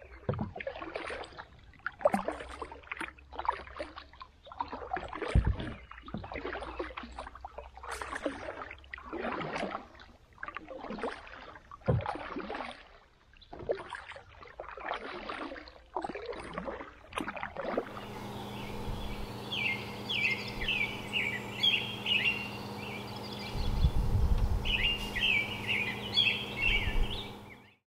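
Kayak paddle strokes pulling through pond water, about one swish a second with splashes and drips. About two thirds of the way in, this gives way to birds chirping in quick runs over a steady low hum, with a brief low rumble in between.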